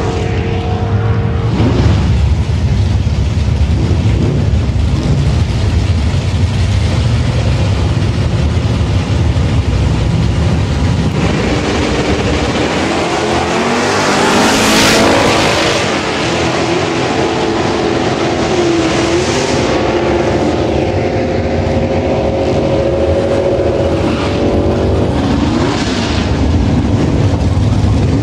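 Loud car engines running steadily, swelling to a louder, hissier surge about halfway through.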